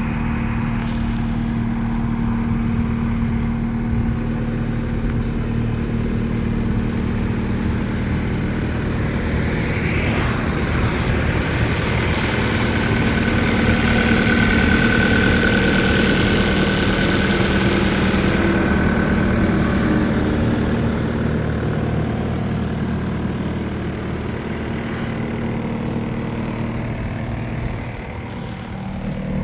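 2015 New Holland L228 skid steer's diesel engine running steadily. It grows louder about a third of the way in, with a high steady whine joining it in the middle, then eases back down, dipping briefly near the end.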